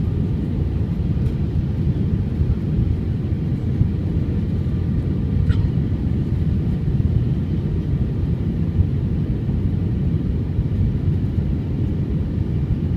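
Airliner cabin noise in flight: a steady low rumble of the engines and rushing air, unchanging throughout.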